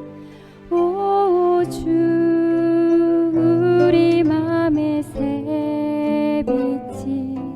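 Hymn music on a 25-string gayageum with accompaniment: a slow melody of held notes that move in steps, one sliding up in pitch about a second in.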